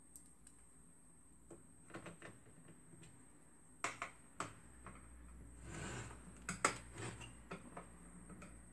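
Scattered light clicks and knocks of a screwdriver and hands working on a printer fuser unit's plastic housing while its cover screws are driven in, with a brief scraping rustle about six seconds in.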